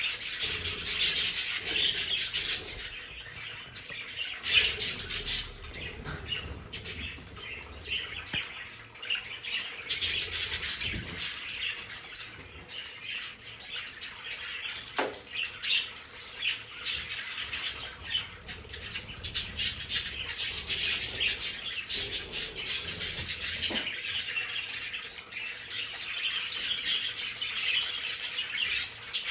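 A flock of budgerigars chattering continuously, a dense mix of warbling, chirps and sharper squawks.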